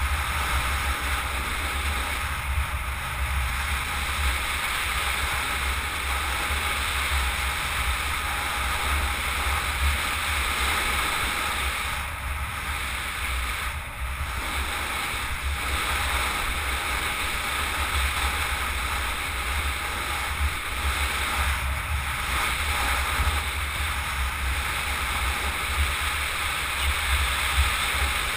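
Steady rushing wind buffeting the microphone of a helmet-mounted camera on a bicycle moving at speed along a paved road, with a heavy low rumble underneath.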